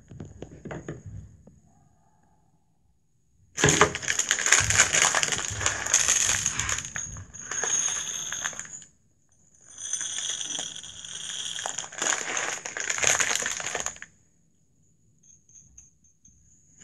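Dried beans poured from a plastic bag into glass Petri dishes, a dense rattle of many small beans clicking on glass. There are two pours, the first starting about three and a half seconds in and lasting about five seconds, the second shorter, near the middle.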